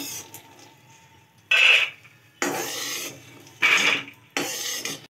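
Metal spoon scraping across a kadhai in four strokes, scooping out freshly roasted peanuts. The first scrape, about a second and a half in, is the loudest.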